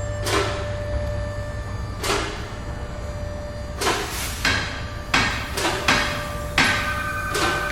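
About nine irregular knocks or strikes, unevenly spaced and bunching up in the second half, several leaving a ringing tone that hangs on after them, over a steady low hum.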